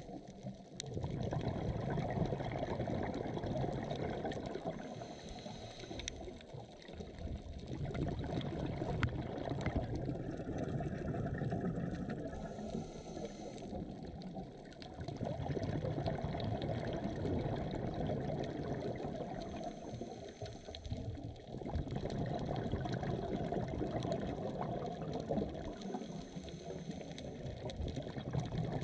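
Underwater sound through a GoPro housing: the rumble and gurgle of a scuba diver's exhaled regulator bubbles, swelling and easing in a slow breathing cycle of several seconds, with scattered faint clicks.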